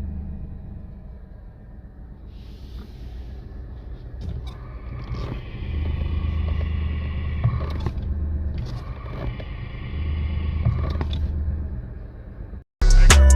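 Renault Kwid's three-cylinder engine idling, with a higher-pitched noise from the worn clutch release (throwout) bearing coming in twice for a few seconds each as the clutch pedal is pressed. Loud music cuts in near the end.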